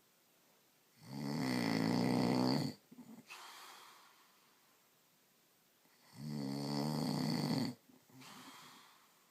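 A man snoring in his sleep: two loud snores about five seconds apart, each followed by a quieter breath.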